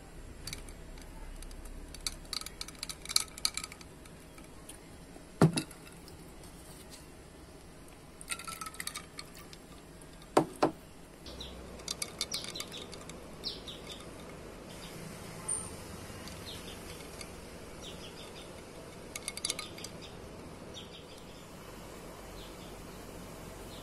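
Ice cubes clinking in a glass tumbler: scattered runs of light clinks with a short ring, and two sharper knocks, one about five seconds in and one about ten seconds in. Short bird chirps come in around the middle.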